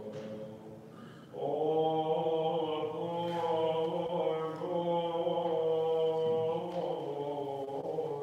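Byzantine liturgical chant: voices singing long held, slowly moving notes, with a brief drop before the singing comes back strongly about a second in.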